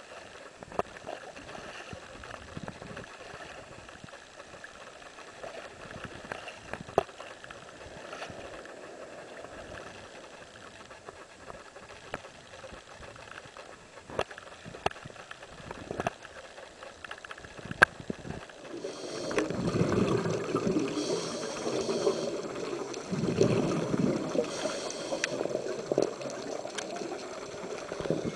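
Shallow seawater sloshing and lapping around a diver wading in, with a few sharp knocks. About two-thirds of the way through the water noise grows clearly louder and rougher as the camera goes into the water.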